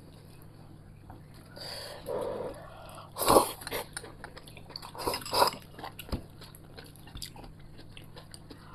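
A person eating: chewing, with a few louder slurps from a small bowl held to the mouth, the loudest a little over three seconds in and more around five seconds in.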